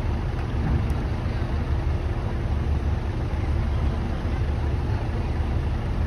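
Steady low rumble of a docked car ferry's engines running at the quay, with cars driving off its ramp.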